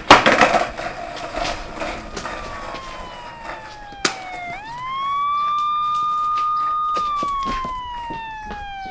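Police siren wailing: a tone that falls, sweeps sharply back up about halfway through, holds, then falls slowly again. A loud clatter at the start and a sharp click about four seconds in.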